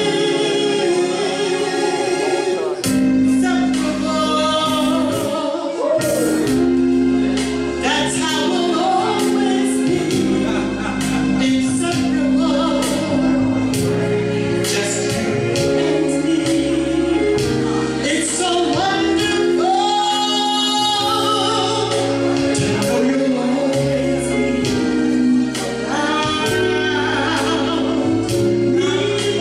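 A woman singing into a microphone over instrumental accompaniment, holding long notes with vibrato.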